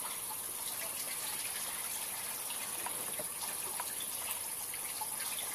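Water rushing and splashing steadily in a spirulina culture pond, with small splashes scattered through it and a steady high hiss above.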